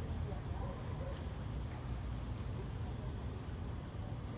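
Insects chirping steadily in one high-pitched band, with a low steady rumble beneath.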